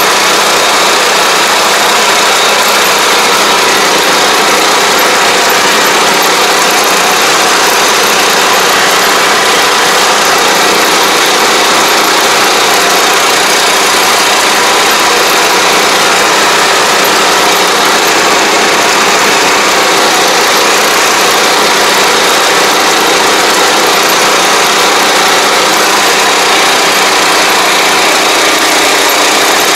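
Engine of a riding pesticide sprayer running steadily and loud while the machine drives through the field spraying, an unchanging mechanical drone with no breaks.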